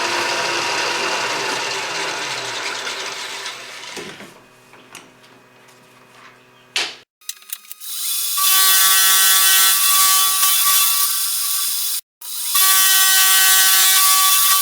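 Machine tool cutting metal blocks to clip their corners: a noisy running sound that dies away over the first few seconds, a sharp click near the middle, then two stretches of loud, steady running with a high hiss, each cutting off suddenly.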